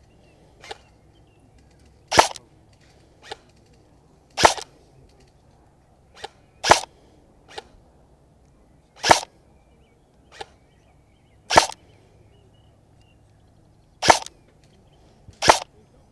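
Arcturus AK-12 electric airsoft rifle (motor-driven gearbox) firing single shots of 0.3 g BBs, seven sharp shots about every two and a half seconds. Fainter ticks fall between the shots.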